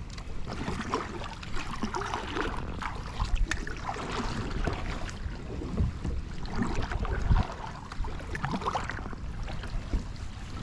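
Wind noise and moving water on a river, with a few soft knocks and handling sounds.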